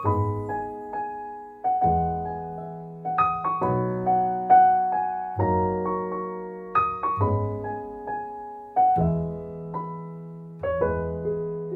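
Slow solo piano music: chords struck about every second and a half to two seconds, each left to ring and fade.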